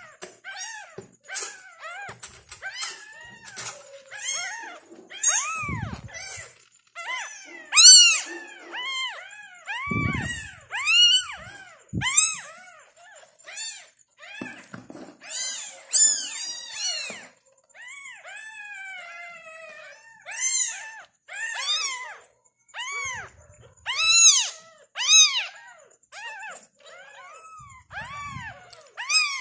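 Newborn tabby kittens mewing, one short high cry after another in quick succession, each rising and falling in pitch. A few thumps of handling come in among the cries.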